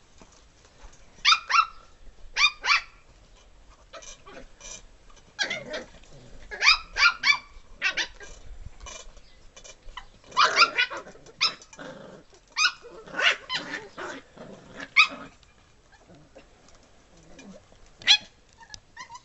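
Sealyham Terrier puppies yapping and barking in play: short, high-pitched yaps in quick clusters of two to five, several times over, with quieter stretches between.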